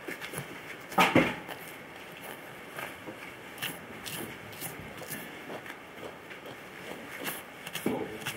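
Knife cuts and the hide being pulled away while skinning a red deer carcass: scattered scrapes, rustles and short clicks, with a louder knock about a second in.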